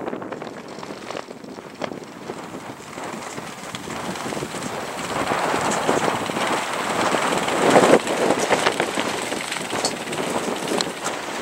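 Strong wind buffeting the microphone in gusts, a rushing noise that swells and falls and is loudest about eight seconds in.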